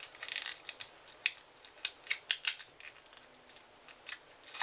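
Plastic packaging of an LED flashlight bulb being handled and opened: a run of sharp, irregular clicks and crinkles.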